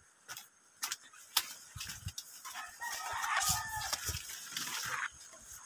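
A rooster crowing: one long crow of about two and a half seconds, starting a little before the middle, preceded by a few sharp clicks.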